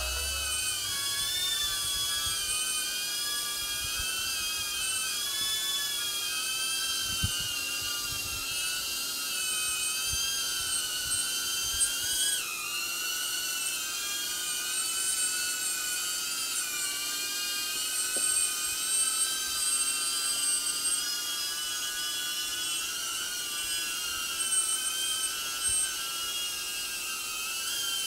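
DJI Avata FPV drone's four ducted propellers whining while it hovers low. The high whine stays steady in loudness but wavers up and down in pitch as the motors hold position, with a sudden jump in pitch about twelve seconds in.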